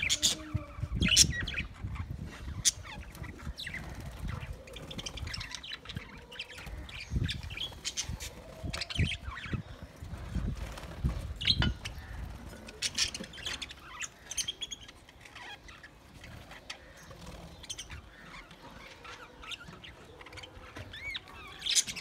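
A flock of budgerigars chirping and chattering, short calls scattered throughout, over a low uneven rumble.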